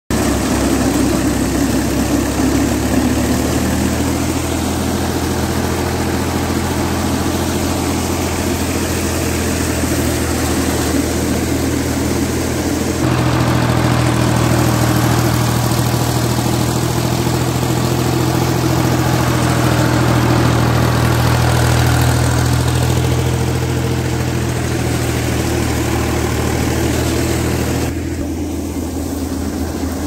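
Tractor diesel engine running a Sonalika wheat thresher by its drive, a loud steady mechanical drone with the threshing machinery working under load. The tone shifts abruptly about halfway through and again near the end.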